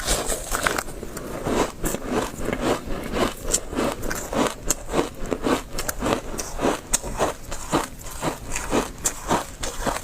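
Someone biting and chewing shaved, refrozen ice: a steady run of crisp crunches, about two a second.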